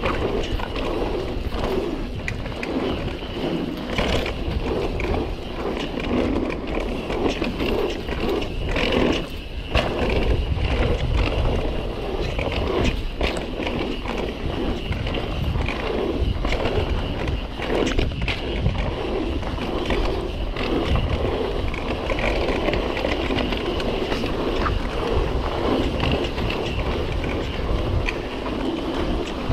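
Guerrilla Gravity MegaTrail mountain bike running fast down a dirt trail: knobby tyres rolling over the ground, with the bike clattering and rattling over bumps.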